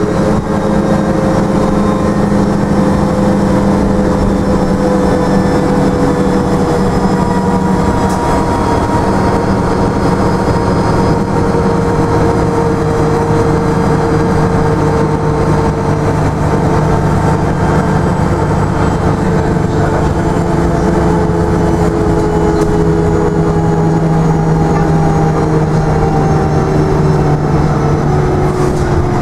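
Karosa B961 articulated city bus heard from inside the passenger cabin while running: a steady engine and drivetrain drone, with a whine that slowly falls in pitch.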